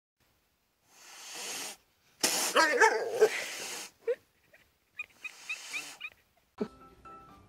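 A loud, dog-like barking call lasting over a second about two and a half seconds in, a short yelp after it, then a quick run of short high squeaks.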